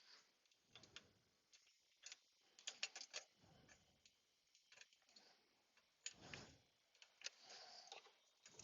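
Near silence with a few faint, scattered metal clicks and taps from fasteners being started by hand, in small clusters about three and six seconds in.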